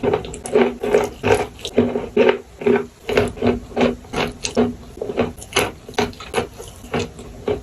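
Close-up chewing and crunching of eating chalk, a steady run of short crisp crunches about two to three a second.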